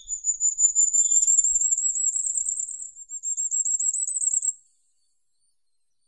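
Firecrest singing: one long run of very high, thin notes repeated rapidly, rising slightly in pitch toward the end, stopping abruptly after about four and a half seconds. A few short, fainter, lower notes sound at the start and about a second in.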